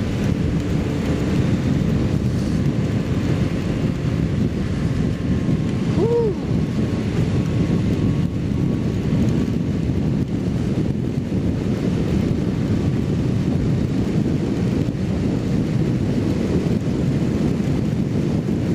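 Steady rush of wind over the microphone with the drone of a Kawasaki Z750 inline-four motorcycle riding at highway speed in the rain. A brief pitched note rises and falls about six seconds in.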